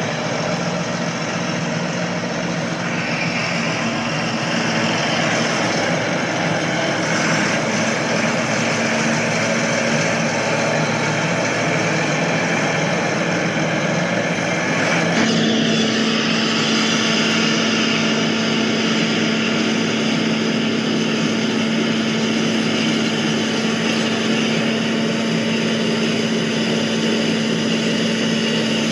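Steady engine noise with a constant low hum, running without letting up; its sound changes abruptly about halfway through.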